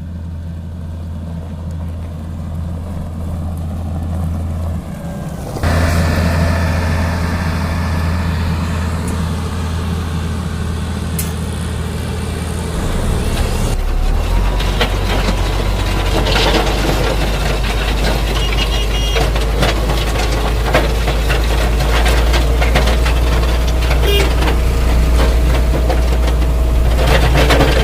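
A motor grader's diesel engine running steadily. It gets louder about five and a half seconds in and drops to a lower, deeper pitch about thirteen and a half seconds in, with many small clicks and knocks over it from then on.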